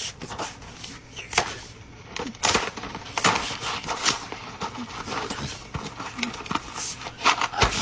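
Cookware and utensils clattering in a kitchen: irregular knocks and clicks, several sharp ones, over a light hiss.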